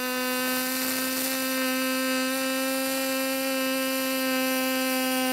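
Pulsed MIG welding arc on aluminium, from an HTP Pro Pulse 220 MTS welder: a steady buzzing tone with hiss over it, running without a break. The buzz's pitch comes from the frequency of the pulse.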